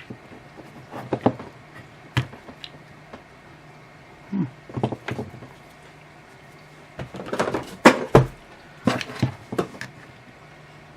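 Knife blade prying and scraping at the sealed seam of a plastic power-adapter case: irregular clusters of sharp clicks, knocks and short scrapes, loudest a little past the middle.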